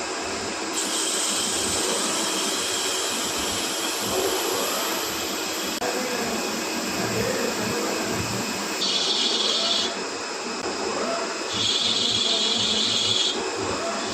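CNC machine running with a steady hissing, rushing noise. A higher-pitched hiss cuts in twice in the second half, each time for a second or two.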